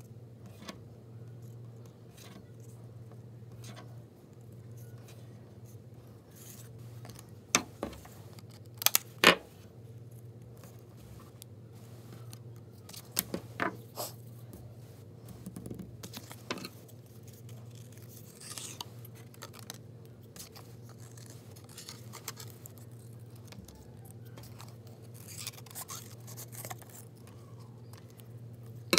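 Scissors cutting curves in thin card, with paper being handled and slid on a wooden table. There are a few sharp clicks, loudest about a third of the way in and again around the middle, over a steady low hum.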